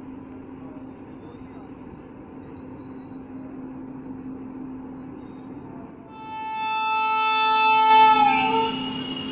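WAP-7 electric locomotive approaching with a steady rumble that slowly grows louder. About six seconds in it sounds its horn: one long blast of about two and a half seconds that dips in pitch as it ends.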